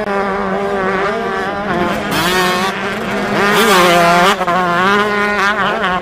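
Motocross bike engines revving on a dirt race track, the pitch rising and falling as the throttle is opened and closed.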